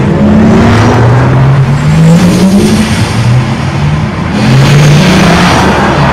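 Porsche Taycan Cross Turismo electric car driving at speed: a low electric-drive hum whose pitch rises and falls with speed over steady tyre and wind rush. About four and a half seconds in, the rush swells as the car sweeps past.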